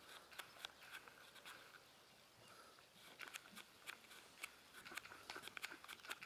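Faint hoofbeats of a German Riding Pony trotting on a sand arena: soft, irregular clicks that come thicker after about three seconds.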